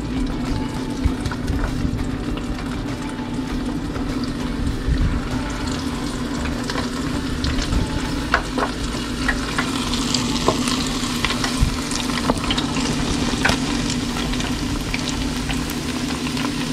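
Wontons deep-frying in hot oil (350°F) in a small basket deep fryer: a steady sizzle with scattered crackling pops that grows busier about ten seconds in, as the wontons go into the oil. A steady low hum runs underneath.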